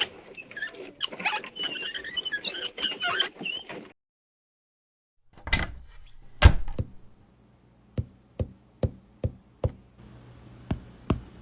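A dense clatter of small knocks and clinks, then a complete silence. After the silence come two heavy thuds a second apart, then a run of sharp, evenly spaced knocks, about two or three a second.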